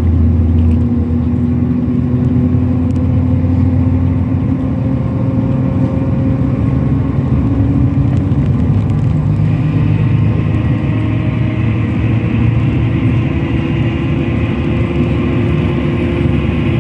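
Passenger coach's engine and road noise heard inside the cabin, a steady low drone. About halfway through, a higher steady hiss joins it.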